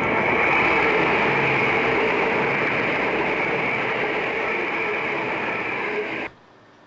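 Virgin Voyager diesel multiple unit passing close by at speed: a loud, steady rush of wheel, rail and underfloor engine noise that eases slightly as the train goes by, then cuts off abruptly about six seconds in.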